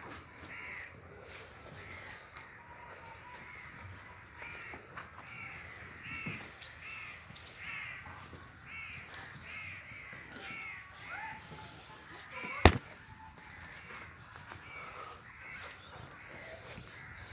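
Crows cawing again and again, with a single sharp click about three-quarters of the way through.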